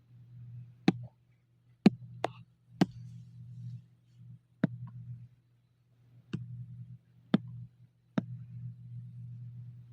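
Computer mouse clicking: about eight sharp single clicks at irregular intervals, over a low hum that comes and goes.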